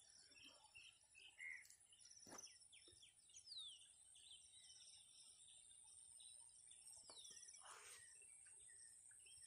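Quiet rural ambience with faint bird chirps: a few short trills and two falling whistle-like calls, over a steady faint high hiss, with a couple of soft knocks.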